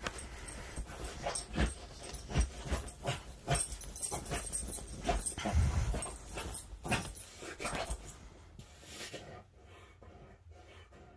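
Border Collie in a grand mal seizure: irregular thumps and scuffing as its paddling legs strike and rub the bedding, dying away after about eight seconds as the convulsion eases.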